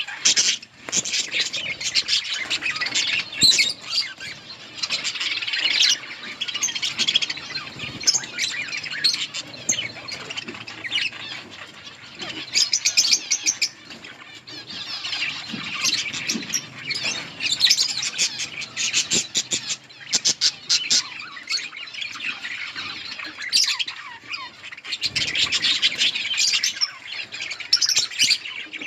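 A flock of budgerigars chattering and chirping, many birds calling over one another with no let-up, swelling into louder bursts now and then.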